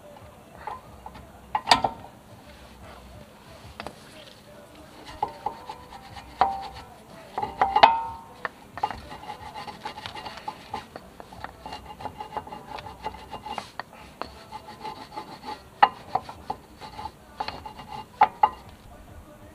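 Metal-on-metal clinks, knocks and scraping from hand work on a car's rear disc-brake caliper assembly. A sharp knock comes about two seconds in, a ringing clank near the middle, and rubbing and scraping follow, with more sharp knocks near the end.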